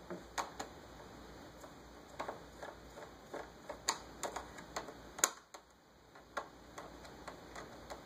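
Light, irregular clicks and taps of a small screwdriver and tiny screws working on a laptop's plastic case, about a dozen over several seconds, the sharpest a little past halfway.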